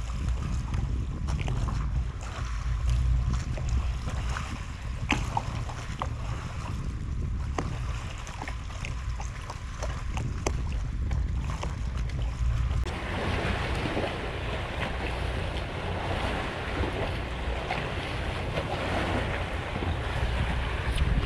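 Wind buffeting the microphone with a low rumble, over water lapping, and scattered small clicks through the first half. About halfway through, a louder, even wash of wind and water noise sets in abruptly.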